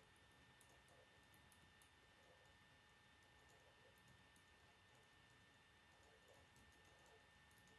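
Faint clicking of a plastic K'nex gear mechanism as its hand crank is turned to spin the ballerina figure. The clicks cluster in the first two seconds and are sparser after that, over a faint steady high whine.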